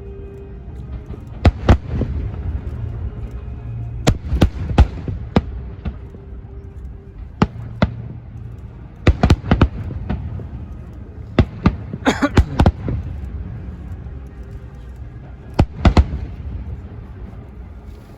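Aerial fireworks bursting, a string of sharp bangs at irregular spacing, some in quick pairs and a rapid cluster about twelve seconds in, over a steady low rumble.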